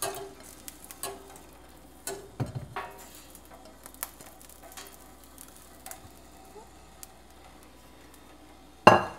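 Sliced vegetables being tipped and pushed from a bowl into a stainless steel pot of broth: scattered soft knocks, scrapes and clicks of the bowl against the pot. A louder clatter comes near the end.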